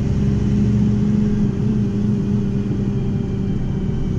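Car engine running steadily while driving along a road, a low drone with road noise.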